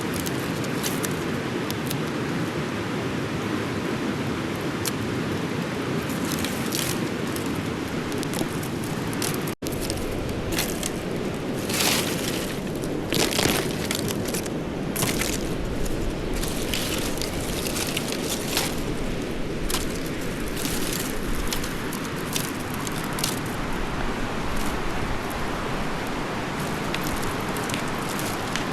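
Steady rushing of a fast mountain river. Over it, scattered crackles and rustles come thickest through the middle part.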